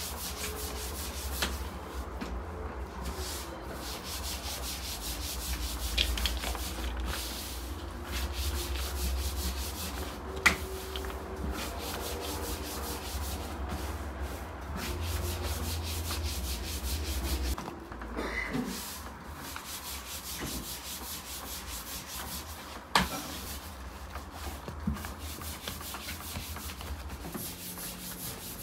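Hands shaping samsa dough around rib-meat filling on a wooden worktable: soft rubbing and shuffling of dough and skin on wood. A steady low hum runs underneath and stops a little past halfway, and two sharp knocks stand out.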